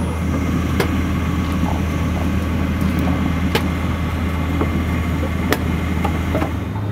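A steady engine hum, like a machine idling, with a few sharp knocks of wooden blocks being set against the rail under a locomotive driving wheel.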